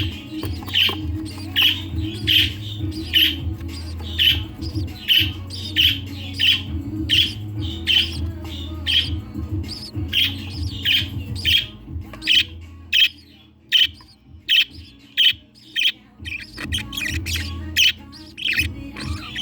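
Newly hatched budgerigar chick's begging cheeps while being fed by a hen: short, high calls repeated about twice a second, coming faster and sharper near the end. A steady low hum runs beneath them.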